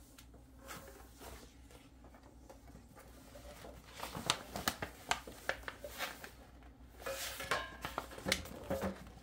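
Paper rustling and scattered light clicks and taps as a sheet of instructions and a small plastic photo printer are handled, starting about four seconds in.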